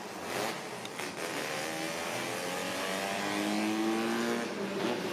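A car engine revving up, its pitch climbing in long pulls with a drop between them, then holding steady near the end.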